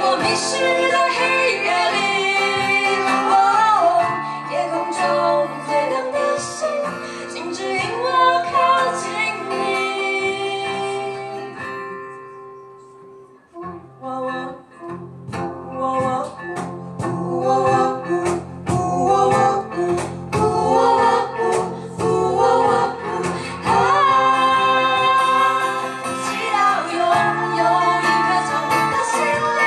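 Pop song sung by a mixed group of female and male voices in harmony, with a female lead, accompanied by acoustic guitar and a cajon. Just before halfway the voices fade almost away. Then the song picks up again over a steady knocking cajon beat, and the full group singing comes back about two thirds of the way in.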